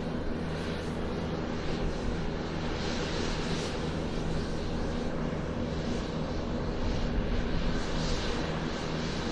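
Airplane taxiing on the ground, its engine running steadily with a low hum and a rushing noise over it.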